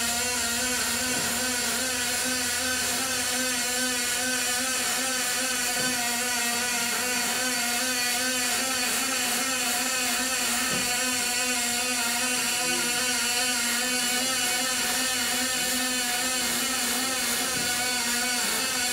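Aluminium MIG welding arc from a robotic torch running a continuous bead on an aluminium radiator: a steady buzz over a dense high hiss.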